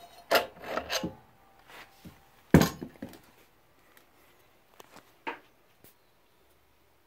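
Parts being handled: a quick run of scrapes and knocks in the first second, one loud knock about two and a half seconds in, and a smaller knock about five seconds in.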